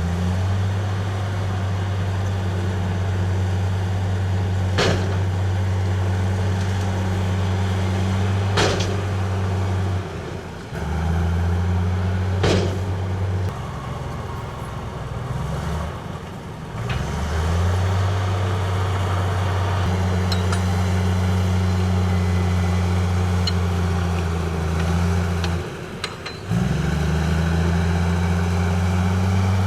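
Heavy diesel engine of earthmoving machinery running hard. It eases off three times and climbs back up each time, with a few sharp knocks in between.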